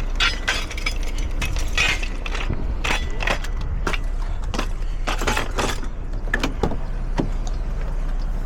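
A string of short clicks, knocks and rustles, like things being handled, over a low steady hum.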